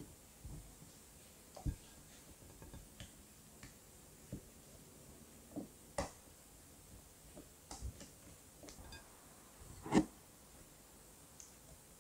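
Silicone spatula folding whipped cream into vanilla custard in glass mixing bowls: scattered soft taps and clicks of the spatula against the glass, with faint squishing, the loudest tap about ten seconds in.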